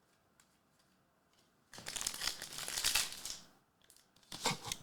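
Crinkling and tearing of a foil trading-card pack wrapper: one dense crackle lasting under two seconds, starting a couple of seconds in, then a few short crackles near the end.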